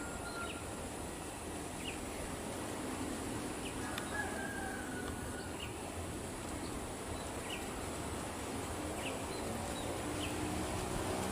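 Rural outdoor ambience with bird calls: one drawn-out falling call about four seconds in, and short high chirps repeating every second or so over a steady background hiss.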